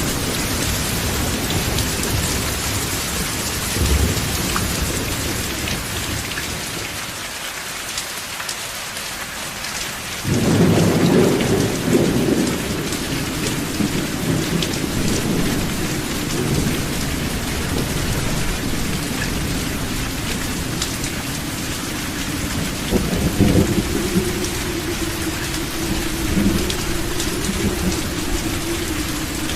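Steady rain falling on a roof, with thunder: a loud low thunderclap breaks in about a third of the way through and rumbles on, and a second, shorter burst of thunder comes about two-thirds through.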